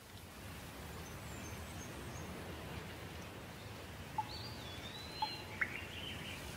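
Outdoor ambience: a steady low hiss, with a few short bird chirps and a brief wavering whistle in the second half.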